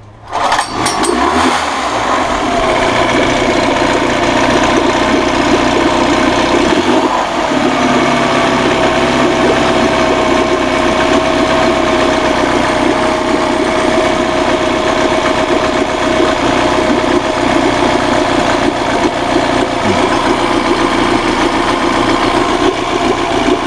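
1983 Honda B100 10 hp four-stroke outboard motor starting right at the beginning and running steadily at a fast idle with a thin steady whine over it, then cutting off at the end. It is running on a test of its cooling, with only exhaust and no water coming from the tell-tale outlet, which points to a water pump impeller problem.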